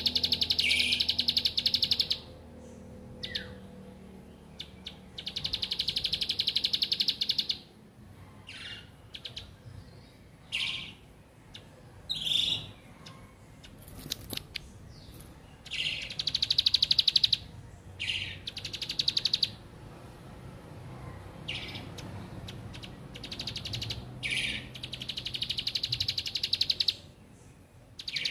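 Plain prinia (ciblek) singing: four long, very rapid buzzy trills of two to three seconds each, with short single chirps between them.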